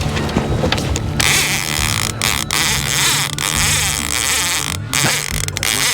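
Steady hum of an electric trolling motor. Over it, from about a second in, a loud hiss cuts in and out several times.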